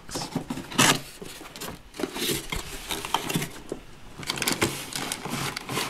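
Hard plastic toy pieces being handled and taken out of a cardboard box: irregular clattering, rustling and knocks, with a sharp knock a little under a second in.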